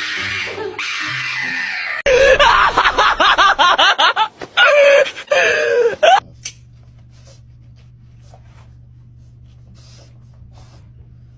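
Shrill screaming that starts abruptly and goes on in rapid, wavering bursts for about four seconds, then stops, leaving a faint steady low hum.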